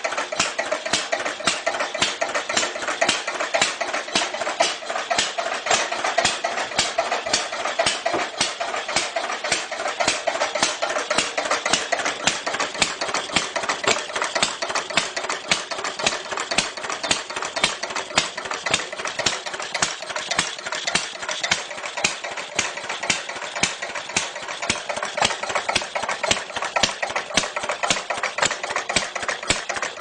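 Clunky old engine idling, with a fast, even clatter of mechanical ticks and knocks that holds steady throughout.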